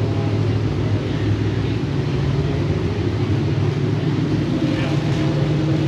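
An engine running steadily, a low droning hum.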